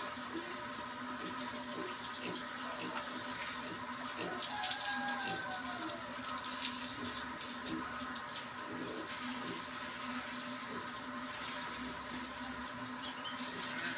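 Water from a garden hose spraying onto a concrete pig-pen floor and onto pigs, a steady rushing splash.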